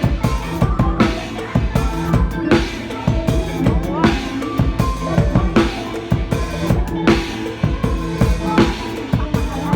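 Drum kit played to an up-tempo mor lam song: a quick, steady pattern of bass drum, snare and rimshots over the band's sustained instrumental backing.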